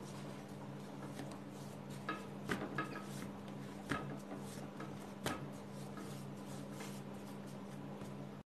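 Hands rolling and pressing a large mass of yeast dough on a glass cutting board: soft rubbing with a few light knocks, over a steady low hum.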